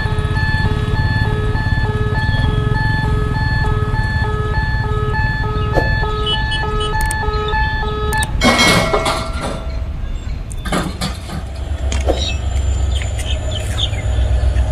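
A repeating electronic beep, one pitch pulsing evenly, over a steady low rumble; the beeping stops about eight seconds in, followed by a loud rustling burst and scattered clicks.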